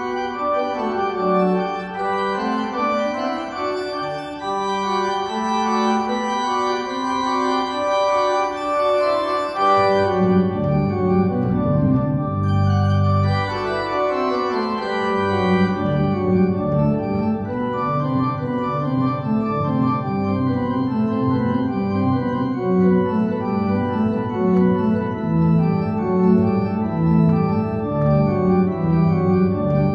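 Organ playing held chords in a slow instrumental piece, with deep bass notes joining about ten seconds in.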